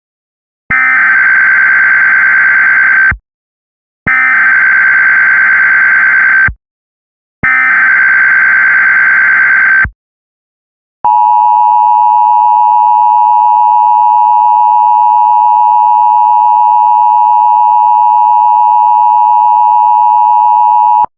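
Emergency Alert System header: three identical bursts of warbling SAME digital data tones, each about two and a half seconds long with a short gap between them. Then comes the EAS attention signal, a steady two-tone alert held for about ten seconds before it cuts off, announcing an emergency message.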